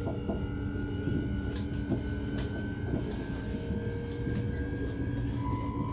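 NS ICNG electric train running, with a low rumble under a whine of several steady tones that slowly climb in pitch, one tone stepping down near the end, and scattered short clicks.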